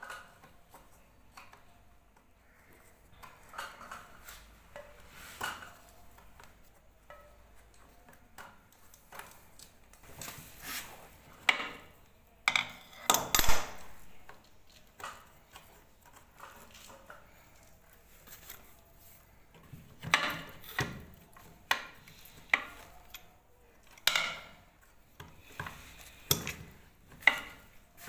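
Working the plastic nuts on the tank bolts under a ceramic toilet cistern: irregular clicks, knocks and scraping of plastic against ceramic, with the loudest knock about halfway through.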